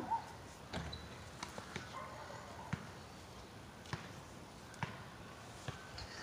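Faint, scattered knocks and scuffs of a person climbing a tree, hands and shoes striking the bark and branches, about one every half second to second.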